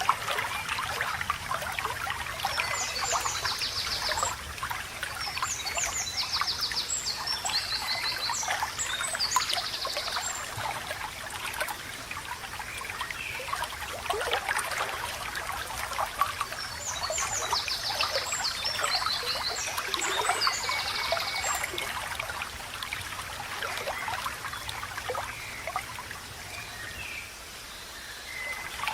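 Shallow water trickling and babbling steadily, with a songbird singing rapid high trills and chirps in two spells, a few seconds in and again just past the middle.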